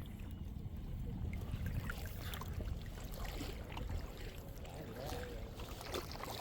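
Lake water lapping and trickling over a steady low rumble, with faint scattered ticks.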